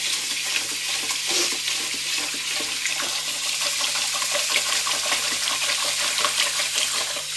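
Kitchen tap running steadily into a pot of rice while the rice is washed by hand, water splashing over the grains.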